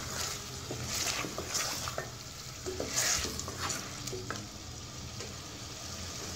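Wooden spatula stirring and scraping chicken pieces through thick masala in an aluminium pot, the masala sizzling as the chicken fries in it. Several scraping strokes come about one second and three seconds in, over a steady sizzle.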